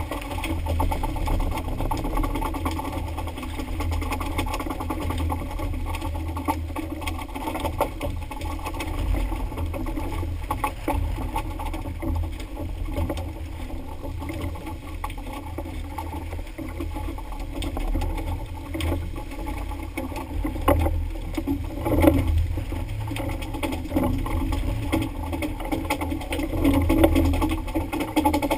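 Boat engine running steadily, with a few sharper knocks in the second half.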